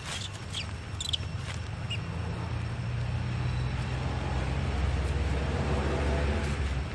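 A motor vehicle engine running with a steady low hum that grows louder in the second half and eases off near the end, with a few short high squeaks in the first two seconds.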